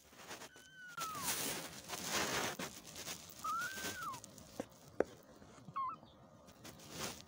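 Young kittens mewing: three thin, high mews, the first falling in pitch about half a second in, the second rising and falling in the middle, a short one near the end. Rustling in between and a sharp click about five seconds in.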